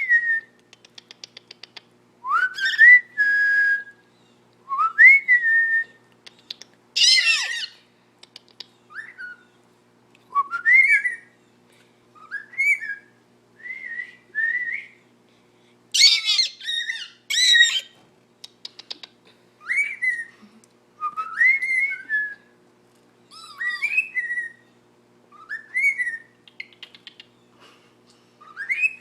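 Pet cockatiel whistling a short upswept phrase over and over, about every one to two seconds, with a few harsh squawk-like calls and brief runs of fast clicking in between.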